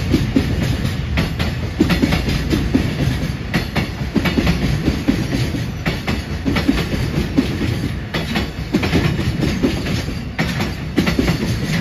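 Freight train of JR container flat wagons rolling past: a steady low rumble with repeated wheel clicks over the rail joints.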